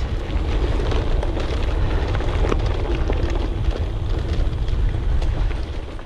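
Wind buffeting the handlebar camera's microphone as a gravel bike rolls along a dry dirt track, a heavy low rumble with small clicks and rattles from the tyres and bike over the rough ground. The sound starts to fade out near the end.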